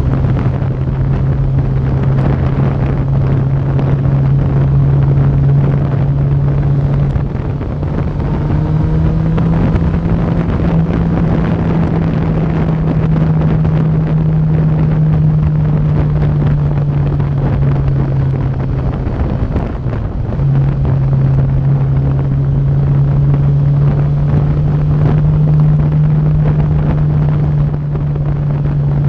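Sport motorcycle's engine cruising at road speed with a steady drone, under heavy wind rush on the microphone from riding. The engine note dips briefly about seven seconds in and again about twenty seconds in, settling at a slightly different pitch each time.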